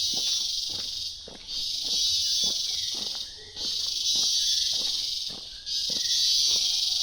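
Rainforest insects buzzing loudly in a shrill chorus that swells and drops in long pulses every couple of seconds, over steady footsteps on the forest floor and a few short bird whistles.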